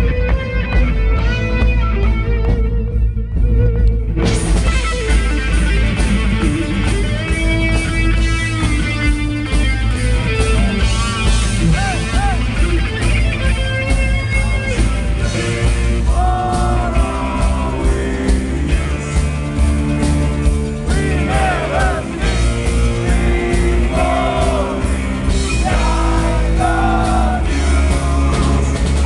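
Live rock band playing: electric guitars and bass over a drum kit that keeps a steady beat from about four seconds in.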